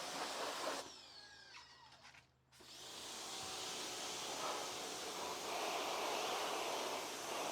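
Pressure washer running and spraying. It cuts out about a second in and starts again a couple of seconds later, then runs steadily.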